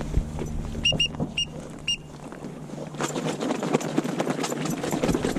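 A few short, high whistled peeps, several in quick succession about a second in and one more near two seconds, over a low steady hum that fades out about halfway. A dense run of rapid clicks and rustling follows in the second half.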